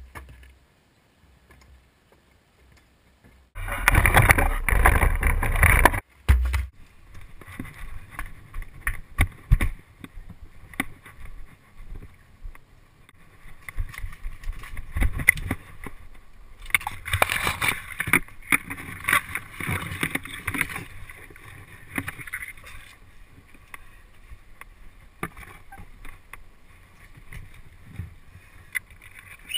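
Rustling, rubbing and knocking from a person moving and climbing, picked up close on an action camera's microphone, with a loud rush of noise about four seconds in and another louder stretch in the second half.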